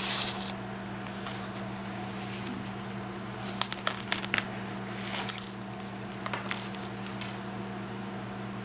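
Handmade paper journal being handled: crisp pages and pockets rustle at the start as it is closed, then a cluster of short sharp crinkles and taps in the middle and a few more near the end. A steady low hum runs underneath.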